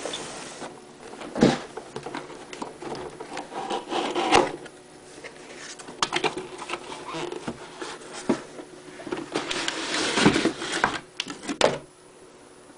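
Cardboard retail box being opened by hand, its flaps and inner packaging rubbing, scraping and knocking in irregular bursts. The loudest handling comes about a second and a half in, about four seconds in, and around ten seconds in.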